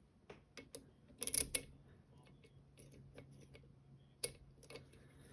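Scattered small clicks and taps of a euro cylinder lock being handled, with a cluster of louder clicks about a second in and a single sharp tap near the four-second mark, over a faint steady low hum.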